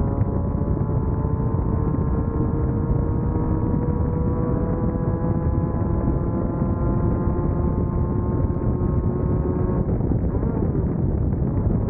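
Class 1600 off-road race buggy's air-cooled VW 1600 engine running hard over a heavy low rumble, its pitch slowly rising, then changing about ten seconds in, as with a gear change or lift off the throttle.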